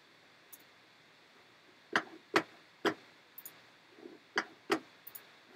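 Sharp, irregular clicks from someone working a desk computer, about seven of them, starting about two seconds in.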